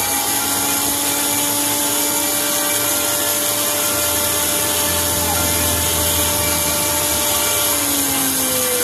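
Handheld rotary tool with a small burr grinding a piece of clear quartz: a steady motor whine over a grinding hiss, the pitch dipping slightly near the end.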